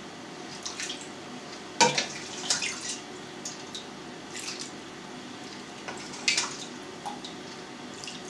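Brine ladled from a steel pot and poured over pork in a glass dish: liquid splashing and dripping, with a few short sharp clatters of the ladle, the strongest about two seconds in and again past six seconds.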